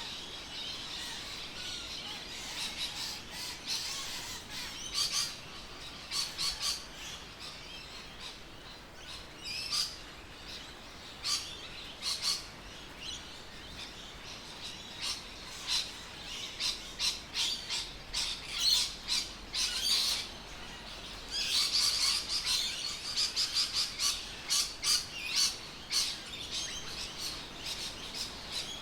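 Birds chirping and squawking in many short, rapid calls, busiest near the end.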